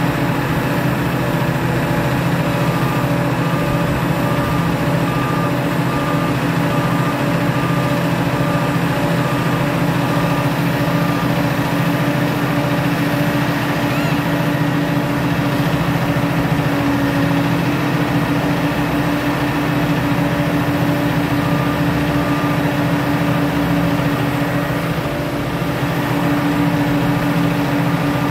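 The heavy engine of a tracked BZI Xtreme telehandler runs steadily. A reversing alarm beeps on and off through stretches of it as the machine moves on the trailer.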